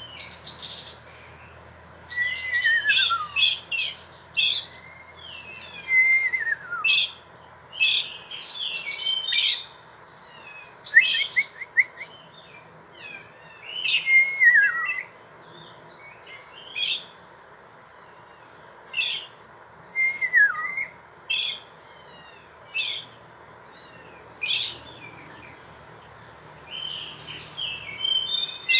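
A songbird singing in short, repeated phrases of high chirps and trills with brief pauses between, several phrases ending in a slurred whistle that falls in pitch.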